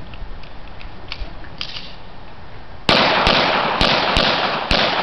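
A rapid string of five shotgun shots about half a second apart, starting about three seconds in. Each shot has a long echoing tail. A few faint clicks come before the first shot.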